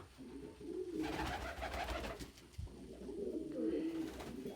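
Domestic pigeons cooing repeatedly in low, wavering calls, with a brief rustling noise about a second in.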